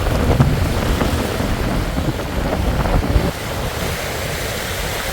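Strong gusty wind buffeting the microphone, with waves washing on a river shore underneath. The gusts ease a little about three seconds in.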